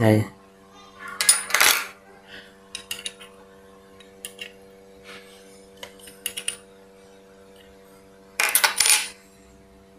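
Irregular metallic clinks and scrapes of a hand tool working on the metal parts of an overlock sewing machine as the lower looper's set screw is tightened, coming in short clusters with the loudest near the end.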